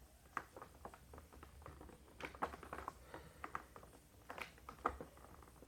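Faint, irregular clicks and rustles of things being handled, with no motor running.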